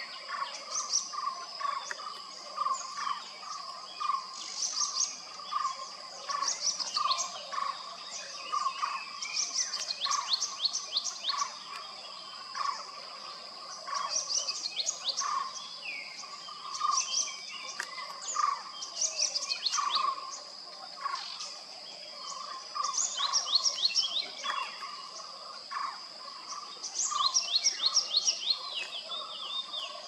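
Wild birds chirping again and again, many calls given as quick runs of high notes, over a steady high-pitched drone that never lets up.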